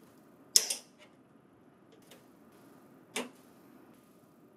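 Plastic cover plates on a printer's side panel snapping free as they are pried off with a flathead screwdriver: a sharp click about half a second in, a faint tick about two seconds in, and another click just after three seconds.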